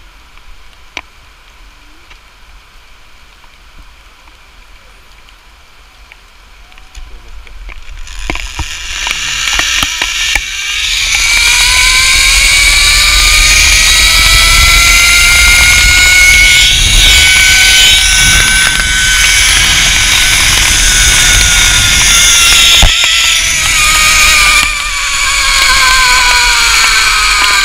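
Zipline trolley pulleys running along the steel cable. About eight seconds in a loud rushing noise builds up, with a whine that rises in pitch and then slowly falls away.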